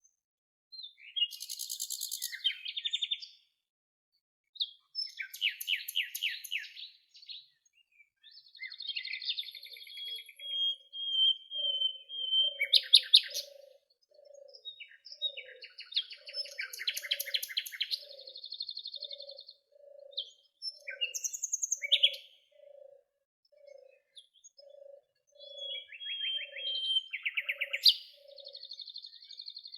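Songbirds singing in a series of short trilled and buzzy phrases with brief pauses between them. A soft low note repeats steadily underneath, about once or twice a second, from about a third of the way in until near the end.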